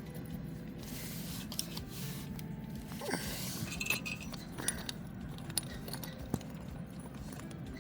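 Light, scattered metal clinks and scrapes of bolts and socket tools being handled while the oil filter housing is bolted back on. There are about half a dozen small ticks spread through it.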